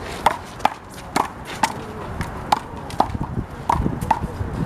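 A rubber handball being played in a one-wall rally: about eight sharp, ringing smacks at uneven intervals as the ball is slapped by hand, hits the wall and bounces off the pavement.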